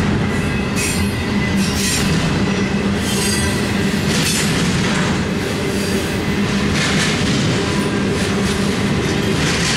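Double-stack intermodal well cars rolling past close by: a steady rumble of steel wheels on rail, with irregular clatter every second or two and a faint thin wheel squeal.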